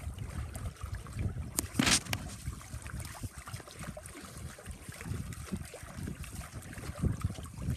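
Wind buffeting the microphone in uneven gusts, with water splashing and lapping against a small sailing boat's hull as it moves over choppy water; a short louder hiss about two seconds in.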